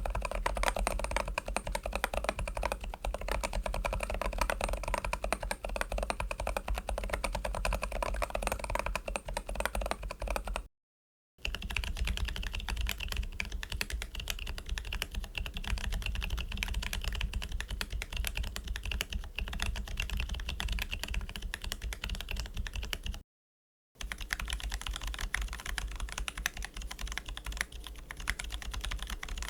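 Typing test on mechanical keyboards fitted with HMX Volume 0 T silent tactile switches: a steady run of quick keystrokes. It comes in three takes split by two short breaks of silence, and the tone changes at each break as the test board changes.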